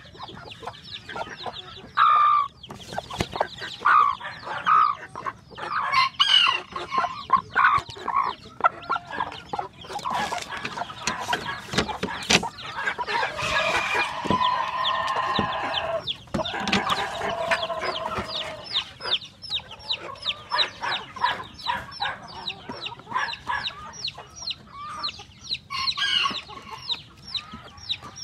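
Filipino native chickens clucking, with a long rooster crow in the middle.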